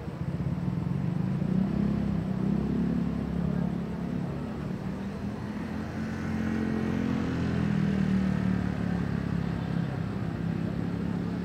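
Street traffic: car and motorbike engines running past in a steady low hum that swells twice as vehicles go by.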